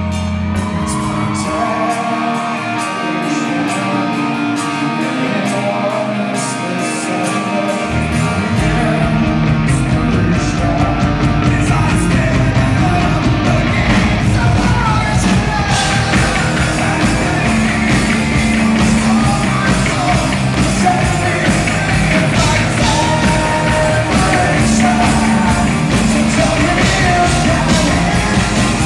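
Live rock band with a male lead singer, recorded from the audience in a large hall. For the first several seconds the bass and kick drum drop out under the vocal, then the full band with bass and drums comes back in about eight seconds in.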